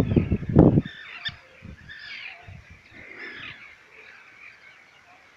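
Many birds calling over one another in high, curving calls. A loud low rumble fills the first second.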